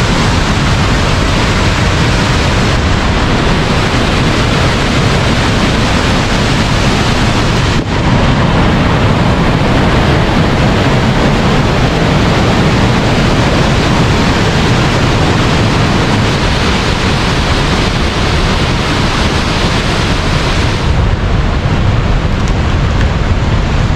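Floodwater released through two opened dam shutters pouring down the concrete spillway: a loud, steady rush of water, with a brief break about eight seconds in. Near the end the rush thins out in its higher range.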